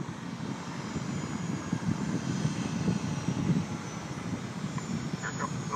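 Single engine air tanker in flight, its engine a steady drone.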